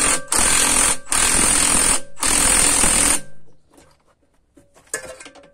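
Cordless impact wrench hammering in three bursts as it unscrews a spring compressor's threaded rod, easing the tension off a compressed strut coil spring; it stops about three seconds in.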